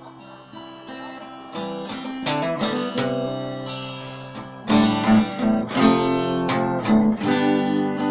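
Instrumental guitar music: soft picked notes at first, then chords that get louder and more strongly strummed from a little past halfway.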